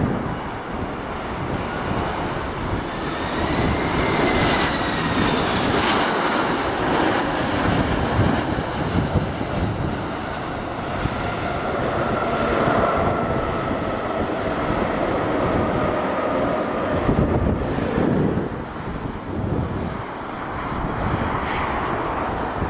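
Boeing 737-800 airliners' CFM56 jet engines on approach and landing: a steady roar with whining tones that bend in pitch, then hold steadier. There is a break about three-quarters of the way through, as one landing gives way to the next.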